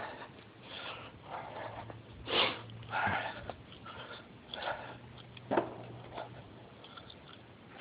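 A climber's breathing: several short, breathy sniffs and breaths close to the microphone, spaced irregularly, with a faint low hum under them.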